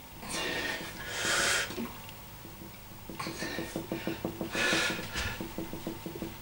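A man's heavy, forceful breathing as he strains through the last reps of dumbbell curls: four hissing exhalations, with a rough strained grunt in the second half.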